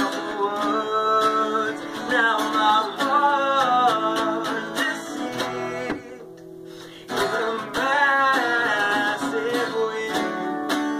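Two acoustic guitars strummed together with a voice singing over them. The sound drops low for about a second around the middle, then the strumming comes back in.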